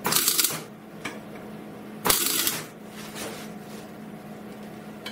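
MIG welder arc crackling in two short bursts, about half a second each and two seconds apart, as it lays weld on a chair's metal tube frame joint. The weld goes in short bursts with pauses so the heated metal does not overheat. A steady low hum runs underneath.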